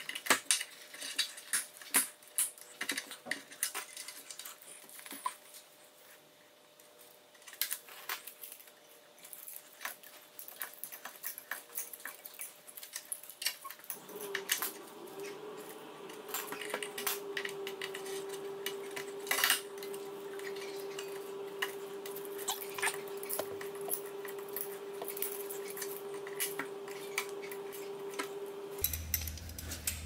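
Light metallic clicks and clinks of tools and small metal parts being handled at a motorcycle's front brake caliper, thickest in the first half. About halfway through, a steady hum with one clear tone starts. It stops just before the end.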